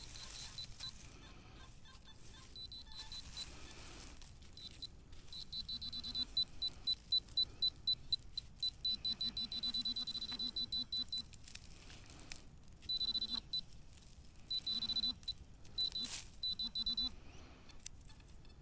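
Metal detector giving its audio signal: high, rapidly pulsing beeps in repeated bursts, with shorter lower tones sounding under some of them, and occasional knocks and scrapes.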